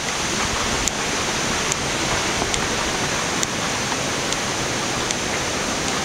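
Waterfall's rushing water, a steady even hiss.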